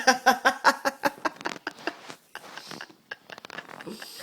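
Hard laughter in rapid pitched pulses, about five a second, tailing off after about two seconds into quieter, breathier laughs.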